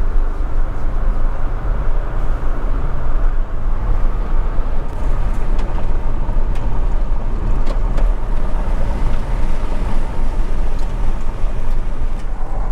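Pickup truck driving on a gravel road: a steady rumble of tyres on loose gravel with road and wind noise, and scattered sharp ticks from about five seconds in.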